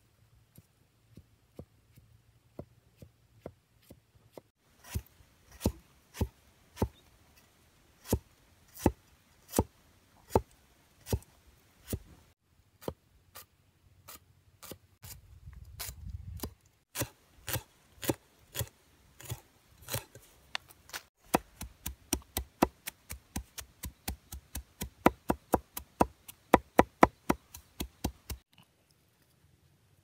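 Curved machete-style knife chopping turmeric root on a wooden stump. Each cut is a sharp knock of the blade on the wood. The knocks are slow and spaced at first, speed up to about three a second in the second half, then stop shortly before the end.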